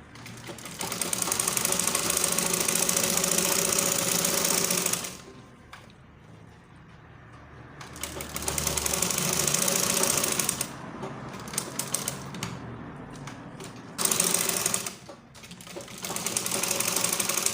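Sewing machine stitching a zipper onto a blouse, running in stop-start spurts of a few seconds each with short pauses and light ticking in between.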